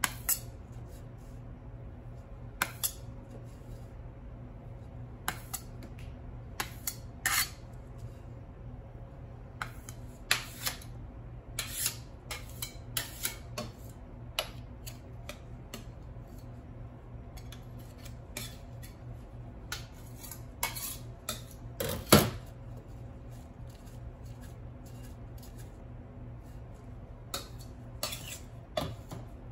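Cake-decorating tools and dishes clinking and tapping at irregular intervals, with one louder knock about three quarters of the way through. A steady low hum runs underneath.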